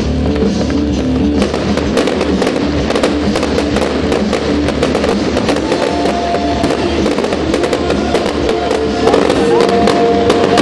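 Firework display: a steady run of crackling and sharp bangs from bursting shells, denser from about a second and a half in, heard over loud music.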